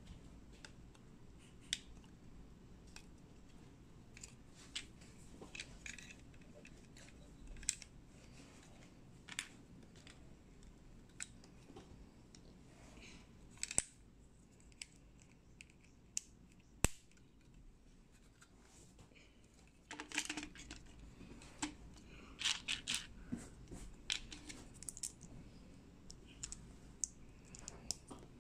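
Small plastic Lego-compatible building bricks being handled and pressed together: scattered faint clicks and light scraping, with a busier run of clicks in the last third.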